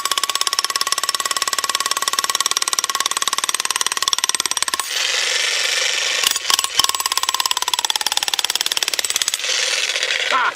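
VEVOR 3500 W electric demolition hammer with a bull-point chisel hammering into a concrete slab just under 3 inches thick, splitting it. Rapid, even blows run over a steady motor whine; about five seconds in the sound turns denser, breaks off briefly twice, then runs on and stops at the end.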